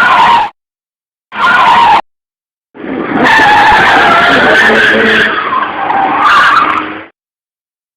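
Car tyres screeching as a car brakes hard at high speed. A short screech ends half a second in, a second short one follows, then a long screech of about four seconds with a wavering squeal.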